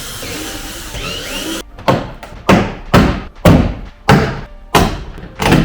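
Plastic tailgate trim panel being pulled off its push clips: a stretch of rustling hiss, then a run of about seven sharp thuds, roughly two a second.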